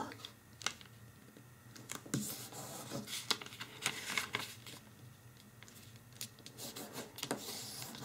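A square sheet of origami paper being folded corner to corner and creased by hand against a table: scattered soft rustles and crackles of paper.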